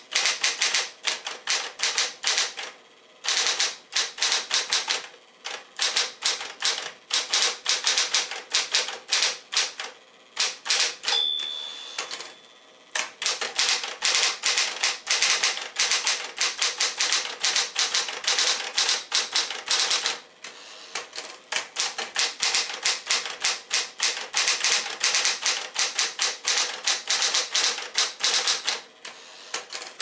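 Smith-Corona Electra 120 electric typewriter being typed on fast, its keystrokes striking in quick bursts with short pauses and a steady motor hum underneath. About eleven seconds in the margin bell rings once, and the manual carriage return is pushed back for a new line.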